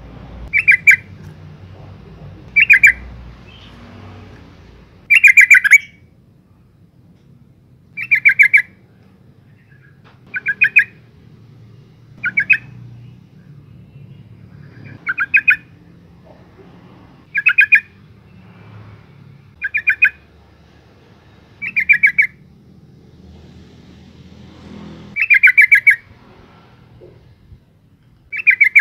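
Yellow-vented bulbul, a calling female, giving short chattering calls. Each call is a quick run of sharp notes lasting about half a second, repeated every two seconds or so.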